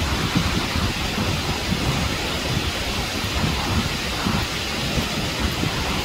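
Waterfall pouring down a rock face: a steady, loud rush of falling water with an uneven low rumble underneath.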